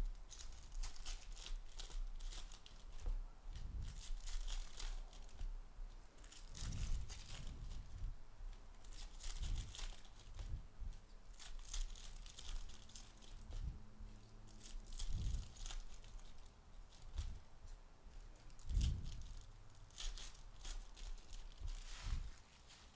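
Trading-card pack wrappers being torn open and crinkled, in repeated bursts of tearing and rustling, with a few dull thumps of handling between.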